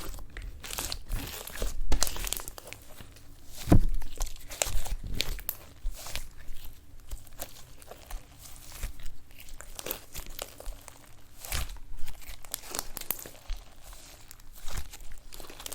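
Slime being squished and poked by hand, with irregular crackles and pops, a few louder than the rest.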